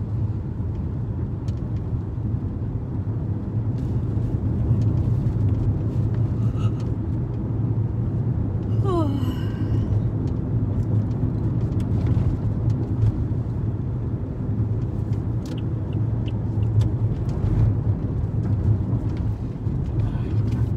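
Road noise of a moving car heard from inside the cabin: a steady low rumble of engine and tyres. About nine seconds in, a brief tone glides down in pitch.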